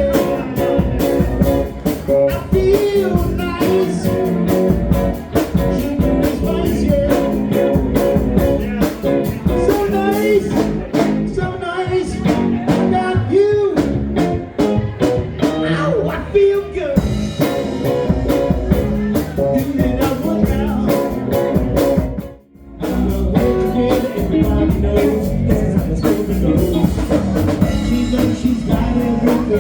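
Live rock-and-roll band playing, with guitar and drum kit. The music cuts out for a moment about three quarters of the way through, then comes straight back in.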